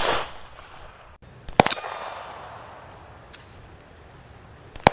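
Distant 9mm pistol shots from a Canik SFX Rival: the echo of one shot fading at the start, then two sharp reports about three seconds apart, one about a second and a half in and one near the end, each followed by a long rolling echo.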